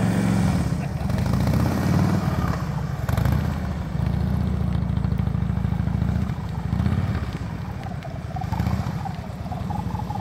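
Motorcycle engine running at low speed through a slow cone course, a steady low rumble heard from inside a car.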